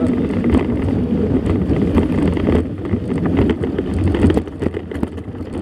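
Wind buffeting the microphone of a moving mountain bike, a loud low rumble, with frequent small rattles and knocks from the bike riding over a rough dirt road.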